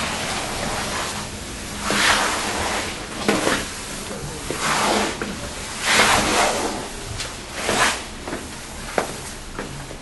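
Footsteps scuffing on narrow stone stairs, one swell of shuffling noise every second or so, with a few short sharp clicks near the end.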